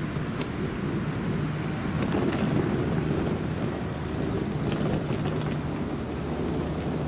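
Steady low rumble of vehicle traffic.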